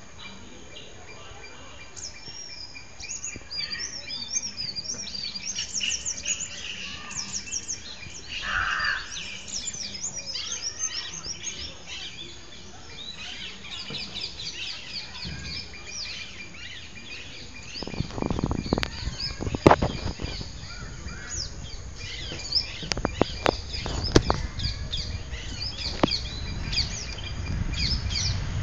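Small birds chirping and twittering in a dense chorus of quick, high calls. Partway through, a cluster of sharp knocks and taps over several seconds stands out as the loudest sound.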